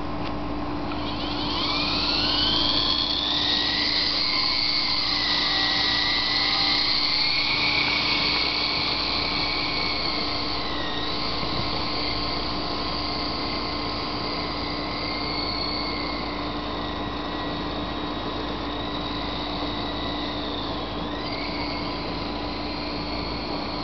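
Radio-controlled model helicopter's high rotor and motor whine, rising steeply in pitch over a few seconds about a second in as it spools up, then holding steady in flight with two brief dips in pitch.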